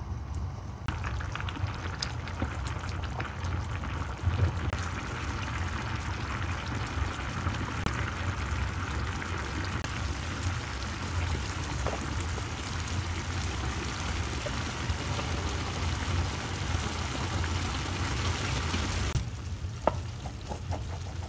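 Pot of basmati rice boiling hard in oily, salted water, a steady bubbling and crackling as the water cooks down into the rice, over a low steady hum. Near the end the bubbling drops away and a few light knocks follow as a spatula handle is pushed down into the rice.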